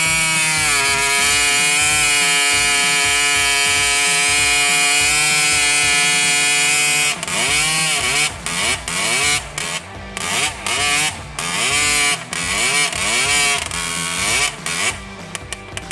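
Husqvarna 3120 XP chainsaw's two-stroke engine, fitted with an upgraded muffler, held steady at high revs for about seven seconds, then revved up and down again and again before falling back to a lower, quieter running near the end.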